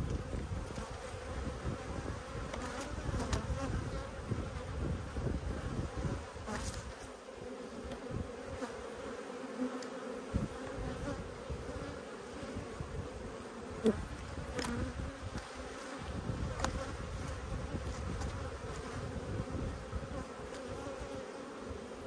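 Honeybees in an opened hive buzzing steadily, a dense hum of many bees on the frames and in the air. The colony is agitated: cranky and flying, which the beekeeper wonders may mean it has gone queenless. A few light clicks come through the hum.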